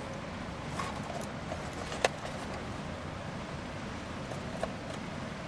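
Small plastic wiring connectors and wires being handled under a pickup's steering column, with light clicks and one sharp click about two seconds in as a connector snaps together, over steady background noise.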